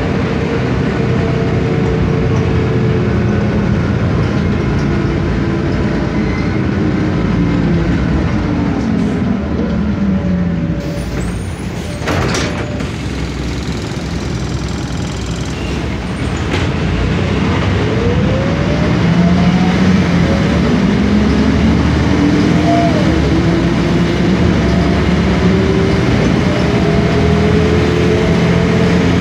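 Sanos S215 bus, heard from inside, with its MAN D2866UH six-cylinder diesel and ZF Ecomat automatic gearbox. The engine note falls as the bus slows and there is a short hiss about twelve seconds in. The engine then climbs again as the bus pulls away and accelerates, with a brief rising whine.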